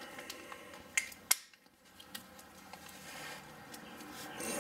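A few faint, sharp clicks, the two loudest about a second in, over a quiet background hiss.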